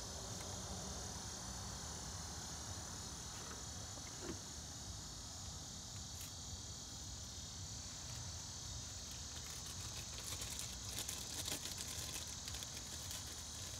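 Steady high-pitched insect trilling, with faint rustles and light clicks about ten seconds in.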